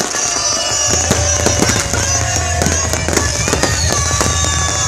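Many fireworks going off at once: a dense run of pops and crackling bangs with whistles sliding down in pitch. A steady low hum comes in about a second in.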